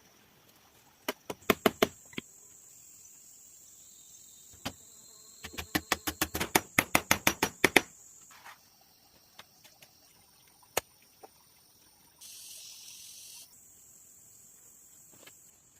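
Sharp knocks of a tool striking bamboo, in quick runs of four and then about a dozen blows with a few single strikes between, over a steady high insect drone. A short hissy burst comes near the end.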